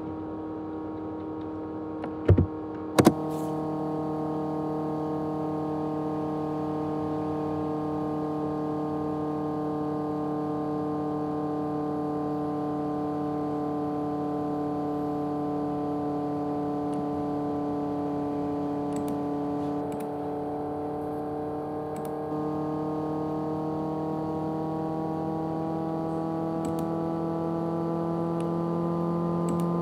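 A 500 GB USB external hard drive's motor gives a steady humming drone made of several stacked tones. Its pitch sags slightly and then creeps back up near the end. Two sharp clicks come about two and three seconds in.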